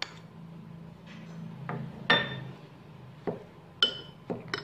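Metal spoon stirring and tapping in a ceramic bowl: a handful of short, ringing clinks, the loudest about two seconds in.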